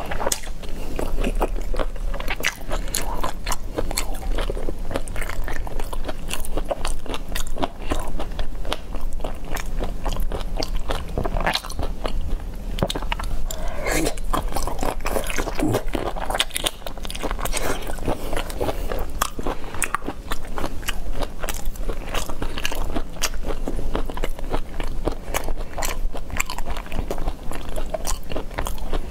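Close-up sounds of a person biting and chewing a large shrimp coated in spicy chili sauce, picked up on a clip-on microphone: a dense, continuous run of small crunches and wet clicks.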